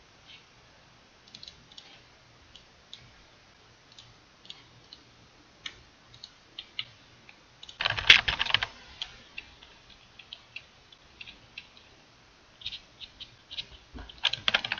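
Computer keyboard typing: scattered single keystrokes with a dense, louder flurry of rapid keystrokes about eight seconds in and another short flurry near the end.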